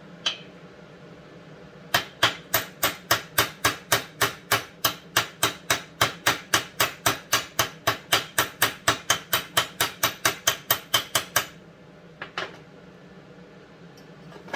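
Hammer striking a bearing-driving punch to drive the crankshaft seal deeper into a McCulloch Super Pro 125 chainsaw crankcase, a little past flush. One knock at the start, then a steady run of about three or four blows a second for some nine seconds, and two lighter taps near the end.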